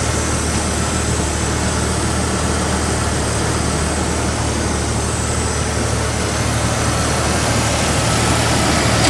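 Vehicle engine idling steadily, with an even hiss over it.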